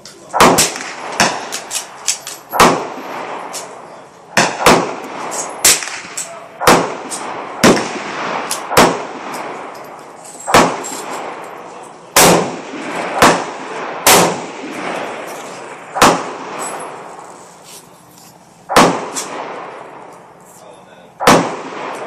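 Gunshots on a shooting range's firing line: about twenty sharp single shots at irregular intervals, roughly one a second, each followed by a short echo.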